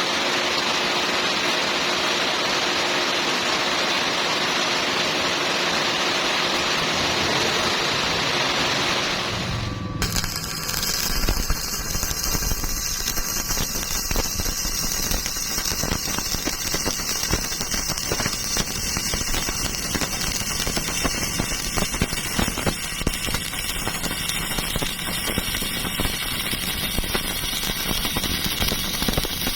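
Arc welding on steel plate: an even, steady hiss for about the first ten seconds, then, after a sudden change, a continuous dense crackle, the frying sound of a stick-welding arc.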